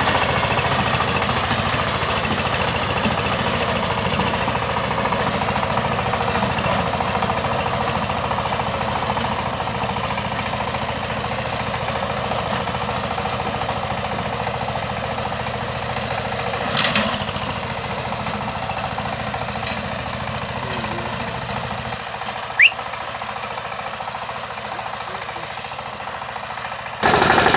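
A 16 hp walking tractor with a rotavator running steadily under load, its engine making a rapid knocking beat that slowly grows fainter. A brief clatter comes about two-thirds of the way through, and a louder burst of noise just before the end.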